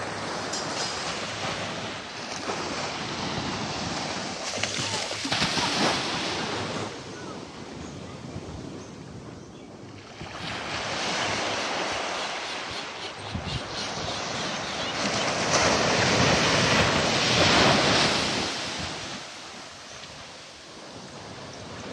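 Small waves breaking and washing up a sandy beach, the surf swelling and easing every few seconds, with wind rumbling on the microphone.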